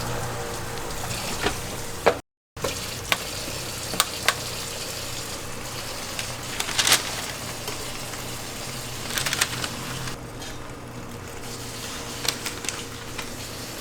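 Food-stall cooking sounds: a steady sizzling hiss with sharp clicks and clatters of utensils scattered through it, and a brief dropout about two seconds in.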